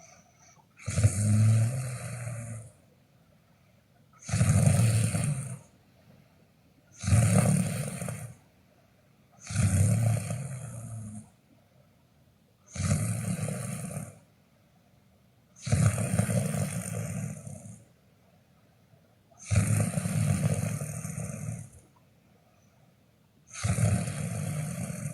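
Snoring in a steady rhythm: eight snores, each about a second and a half long, coming about every three seconds, with quiet between them.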